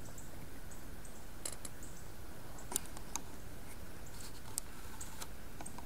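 Quiet woodland ambience: a faint steady hiss with short high chirps every second or so, and a few sharp clicks and ticks scattered through.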